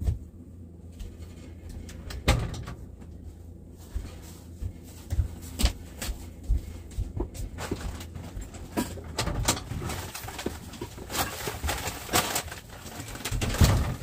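Groceries being handled and packed into a fridge: irregular knocks, clunks and rustles, busier in the second half, over a low steady hum.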